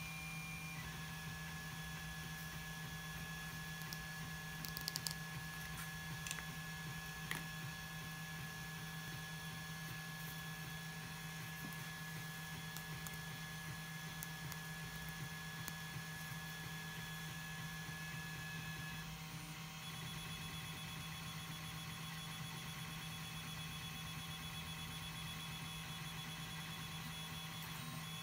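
A steady electrical-sounding hum with faint high whines, and a few light clicks about five to seven seconds in.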